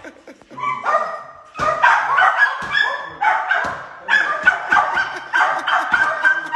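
Small dog yapping over and over in quick, high-pitched barks, a few a second, starting about a second in. Dull thumps of boxing gloves striking pads come in between.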